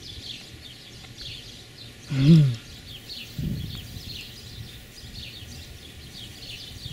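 Small birds chirping in short repeated calls, with one brief wordless low voice sound from a person about two seconds in.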